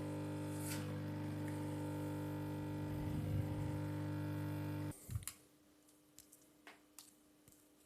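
A hot-air heater runs with a steady hum and stops abruptly about five seconds in, after heating a phone's glued back cover to soften the adhesive. A few light clicks follow.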